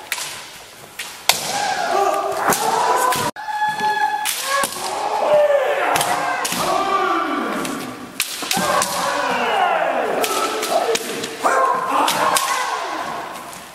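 Kendo sparring: players shouting long, wavering kiai while bamboo shinai crack sharply against armour, with thuds of bare-foot stamps on the wooden floor.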